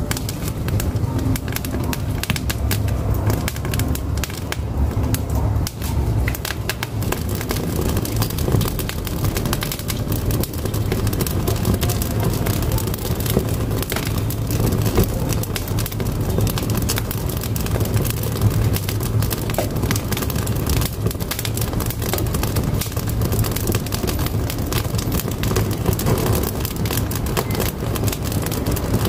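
Firewood burning in a wood-fired cookstove: a steady low rumble of the fire with frequent small crackles and pops throughout.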